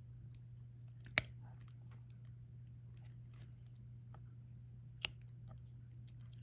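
Diamond-painting applicator pen picking up resin drills and pressing them onto the sticky canvas: scattered soft clicks and ticks, with two sharper clicks about a second in and near the five-second mark, over a steady low hum.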